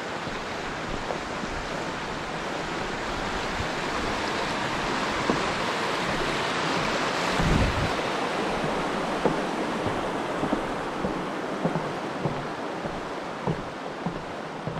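Rushing brook over rocks, a steady wash of water that grows louder toward the middle while crossing a wooden footbridge over it, then eases off. Scattered footsteps knock on the wooden planks, with a low thump about halfway through.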